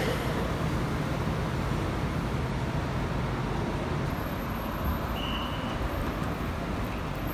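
Steady road traffic: car and bus engines running, a low engine hum under an even rumble.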